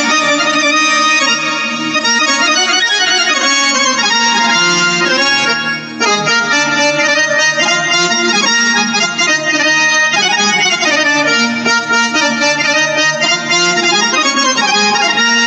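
Roland XP-60 synthesizer keyboard playing a continuous melody on a 'benjo' tone, the keyboard's imitation of the Bangladeshi benjo (bulbul tarang), which comes out bright and reedy like an accordion. There is a brief dip in the sound about six seconds in.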